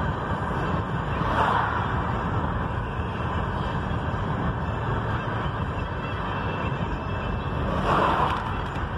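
Steady road and engine noise inside a moving car, with an oncoming vehicle passing about a second and a half in and another near the end.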